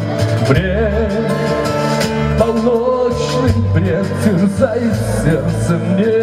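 A man sings into a microphone over a pop backing track, holding long wavering notes above a steady bass line.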